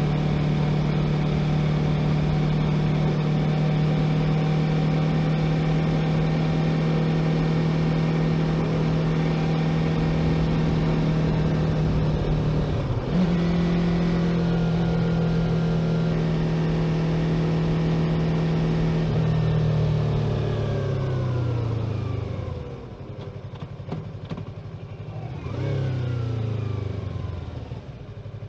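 Yamaha YZF-R3 321 cc parallel-twin engine running at steady revs, its note stepping briefly about halfway through. Then the revs fall away as the bike slows, with a short rise and fall in revs near the end before it settles quieter.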